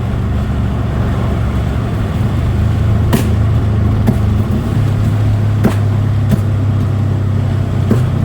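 Turbocharged 4G15 four-cylinder engine of a Proton Wira running under way, with the uneven Subaru-like rumble of its unequal-length headers; its note changes about five seconds in. A few short sharp clicks or pops stand out over it.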